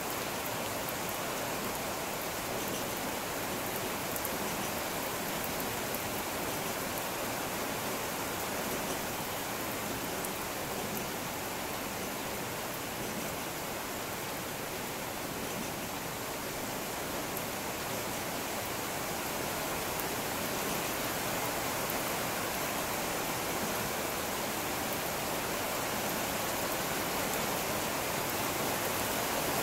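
Steady rain falling on a wet floor with puddles: an even, unbroken hiss that grows slightly louder toward the end.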